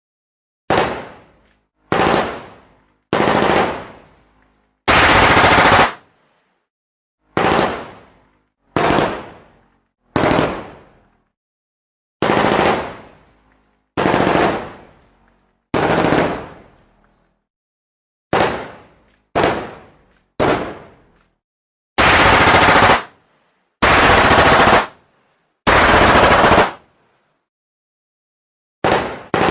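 Gunfire: single shots that each ring off in a fading echo, one every second or two, mixed with several bursts of automatic fire about a second long each.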